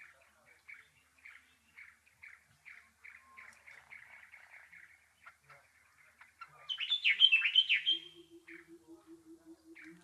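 Sedge warbler singing. A faint, fast run of chirps gives way about seven seconds in to a loud burst of rapid downward-sweeping notes. A low, even pulsing hum starts soon after and runs on beneath it.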